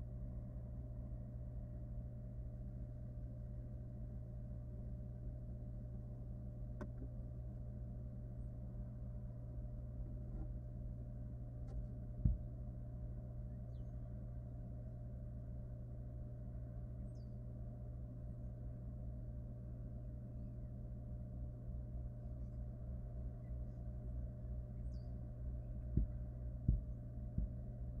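Steady low electrical hum from a nest-box camera microphone, with a soft knock about twelve seconds in and two or three more near the end, and a few faint short high chirps in the background.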